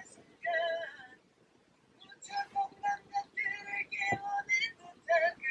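A voice singing in short, high held notes, with a pause of about a second near the start and a single sharp knock about four seconds in.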